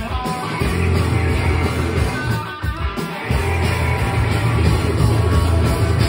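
Punk rock band playing live: electric guitars, bass and drums, loud and dense, with the low end dropping out briefly about two and a half seconds in.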